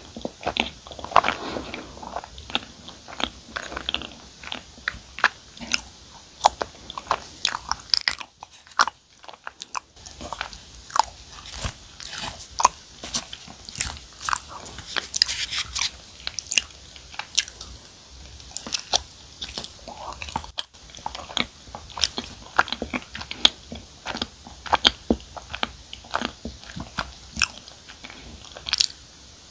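Close-miked chewing of soft, sticky cream-cheese-filled glutinous rice cake (chapssaltteok): a dense run of sharp, wet mouth clicks and smacks, with a short lull about eight seconds in.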